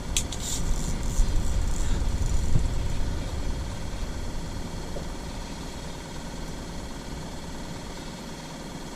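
Vehicle engine running with a low rumble, loudest for the first few seconds and then slowly fading.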